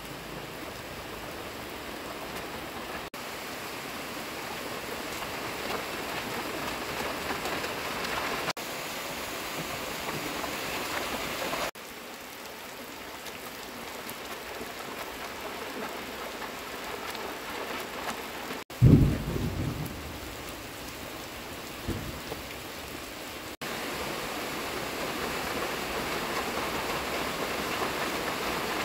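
Heavy rain pouring onto a flooded road, a steady hiss of drops splashing into standing water that changes abruptly in level several times. About two-thirds of the way through comes a short, loud, low boom, with a smaller one a few seconds later.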